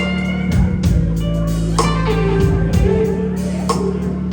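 Live blues-rock band playing: distorted electric guitar over a heavy drum beat, with no singing.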